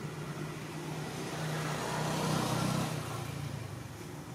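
A motor vehicle passing: a steady low hum under a rush of noise that builds to a peak a little past halfway and then fades.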